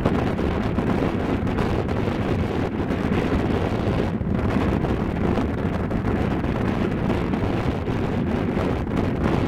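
Steady wind buffeting the microphone, a loud continuous rumble.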